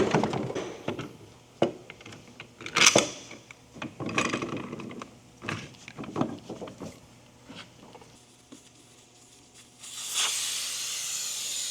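Knocks and clatter of tools and wheel handling, then about ten seconds in a steady hiss of air escaping from a tire being let down.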